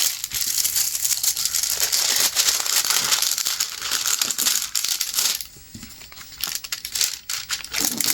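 Crinkling plastic as a diamond-painting canvas and its plastic wrapping are handled: a dense crackle for about five seconds, then fainter, scattered crackles.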